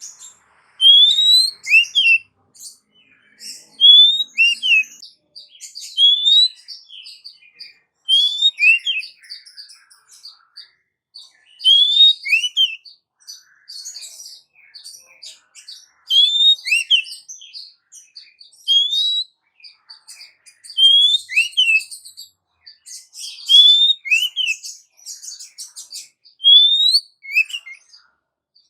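Female oriental magpie-robin giving its call to a male, repeating a short phrase every two to three seconds: a rising whistle, then a quick down-slurred note, with scratchy chatter between phrases.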